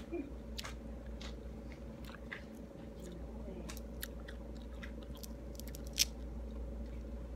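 A person chewing and eating pomelo: short wet mouth clicks and smacks, with one sharper click about six seconds in. A steady low hum runs underneath.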